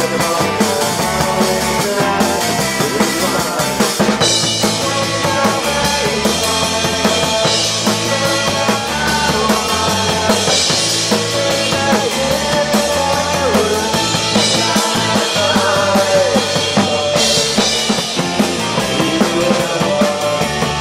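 Rock band playing live: electric guitar, bass guitar and drum kit together.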